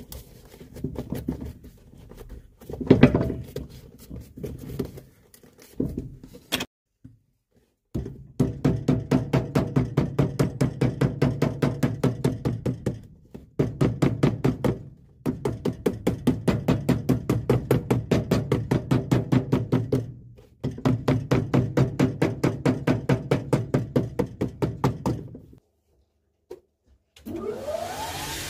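Cobbler's hammer rapidly tapping a freshly glued leather sole down onto a shoe, about five blows a second in three long runs with short pauses between. Near the end a shoe finishing machine's motor starts with a rising whine and settles into a steady run.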